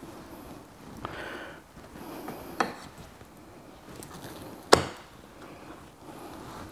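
Kitchen knife knocking against a wooden chopping board while trimming raw chicken breast, with soft handling noises between. Three knocks, the loudest and sharpest just under five seconds in.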